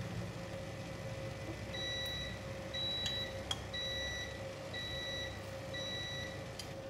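Cooking timer beeping five short high beeps about a second apart, signalling that the 20-minute steaming time is up. A steady hum runs underneath.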